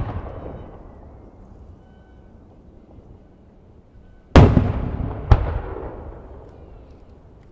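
Japanese aerial firework shells bursting: a sharp bang at the start, then a big boom about four and a half seconds in and a second sharp bang a second later. Each trails off in a long rumbling echo.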